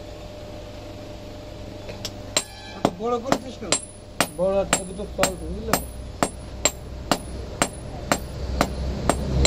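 Hand hammer striking red-hot iron on a block anvil, a steady run of sharp metallic blows about three a second, starting about two seconds in.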